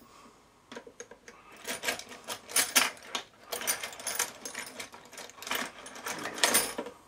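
Small metal drill bits rattling and clinking as they are rummaged through in a box, in dense, irregular clatters from about a second in until near the end.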